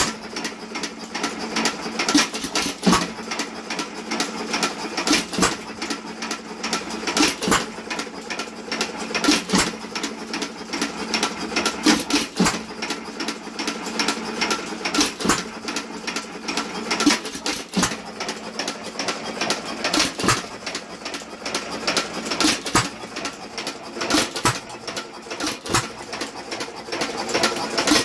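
Associated 1.75 hp air-cooled hit-and-miss engine running: a steady, rapid mechanical clatter, with a louder sharp bang every two to three seconds as it fires, then coasts between firings.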